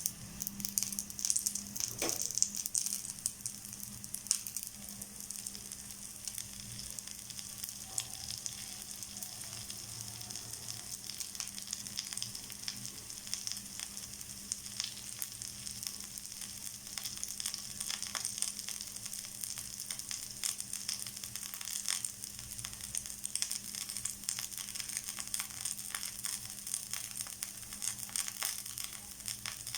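Dosa batter sizzling on a hot griddle (tawa). It starts suddenly as the batter meets the pan and is loudest over the first few seconds, then settles into a steady crackling sizzle.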